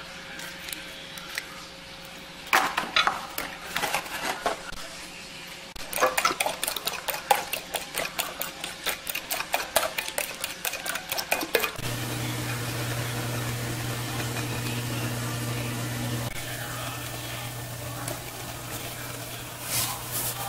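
Kitchen utensil clicking quickly and unevenly against dishes, about three to four clicks a second, then a steady low motor hum from about twelve seconds in.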